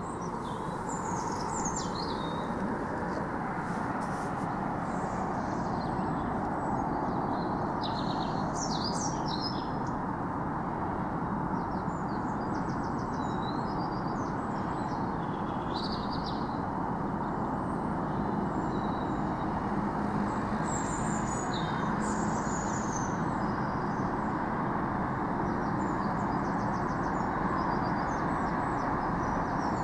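A steady, unbroken low rumbling noise, which the recordist presents as a disorientating low-frequency noise. Small birds chirp now and then over it.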